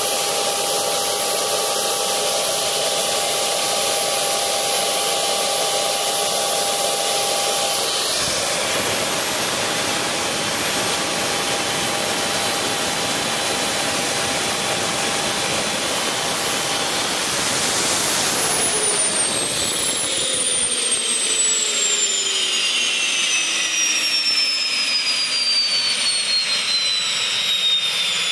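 Tiernay TT10 gas turbine engine running with a steady high whine. About two-thirds of the way through, the whine starts falling steadily in pitch as the turbine spools down.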